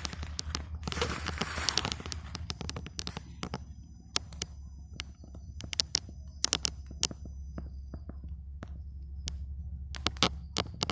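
Wood campfire crackling, with sharp, irregular pops scattered throughout. A hiss is louder in the first two seconds, and a steady low rumble runs underneath.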